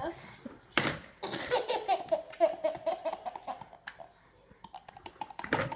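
Baby laughing: a sharp burst about a second in, then a run of quick, repeated giggles for about two seconds, fading, with another loud burst near the end.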